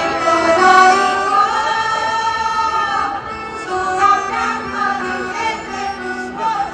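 A women's choir singing a folk song in unison, with long held notes, accompanied by an accordion.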